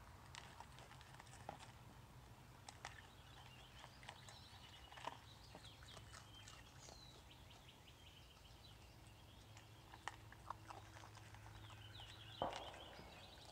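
A raccoon eating from a plastic tub: faint scattered clicks and taps of its snout and paws against the tub, with one louder knock near the end.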